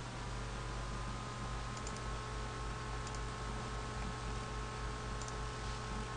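Steady room hum and hiss with a faint steady whine, and a few small clicks of a computer mouse about two, three and five seconds in.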